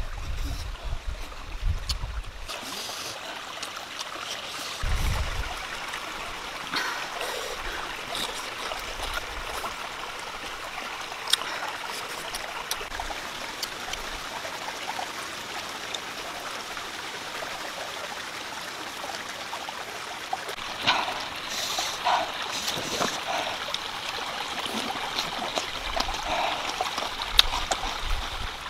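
Shallow stream running and trickling over rocks in a steady wash, with a few small clicks and splashes on top and a low rumble in the first couple of seconds.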